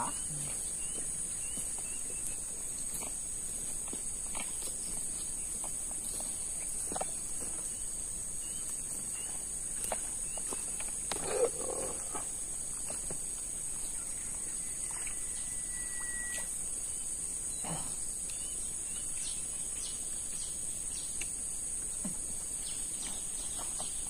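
Steady high-pitched drone of insects, with scattered soft clicks and rustles, a short louder knock about eleven seconds in, and one brief high note around sixteen seconds in.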